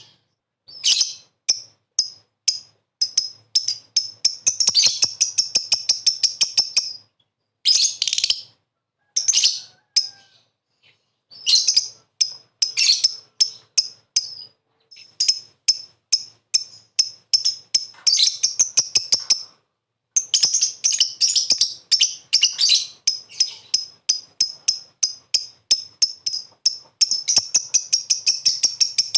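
Lovebird chattering: runs of sharp, high chirps several a second, broken by short pauses and closing in a fast, dense run. This is the 'ngekek' chatter used as a lure to make other lovebirds answer.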